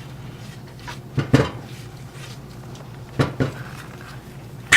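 Metal clinks and knocks of a tool working a motorcycle fork's top cap loose, a few separate strikes with the sharpest one near the end.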